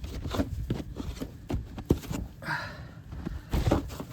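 Footsteps crunching in snow, irregular steps several times a second, over a low rumble of wind buffeting the microphone.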